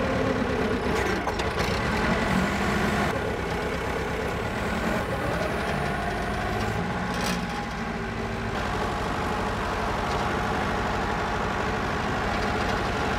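Forklift engine running steadily under load as it lifts the rear of a heavy pickup truck.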